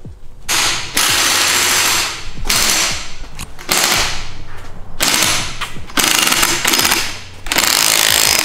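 Impact wrench with a socket spinning the top of a BMW E36 front coilover to adjust it, in about six bursts of roughly a second each with short pauses between them.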